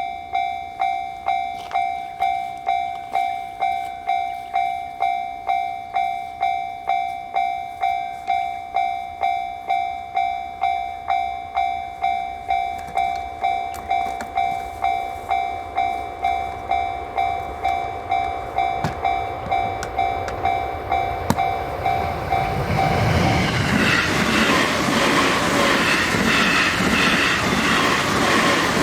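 Japanese level-crossing warning bell sounding its 'kan-kan', about two strikes a second. Then a JR Sobu Line electric train passes through the crossing. Its rumble and wheel noise rise about three-quarters of the way in and drown out the bell.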